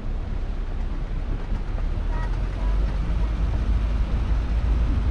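A car driving along a road: a steady low rumble of the moving vehicle and wind, which grows a little louder about two and a half seconds in.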